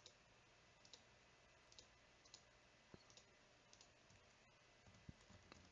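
Near silence with about a dozen faint, scattered computer mouse clicks, spaced irregularly.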